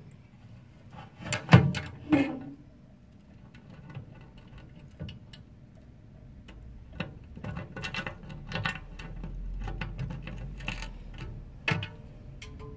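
Clicks and light knocks of small metal cabinet hardware being handled and screwed in by hand while glass shelf supports are fixed to a panel. A couple of sharper knocks come about a second and a half in, then irregular quiet ticking through the second half.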